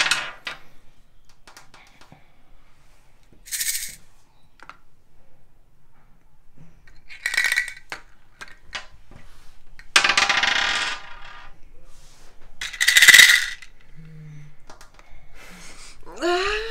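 Wooden sound cubes from a memory-matching game being shaken one at a time, the small objects sealed inside rattling in short bursts several seconds apart, one longer shake about ten seconds in. Laughter near the end.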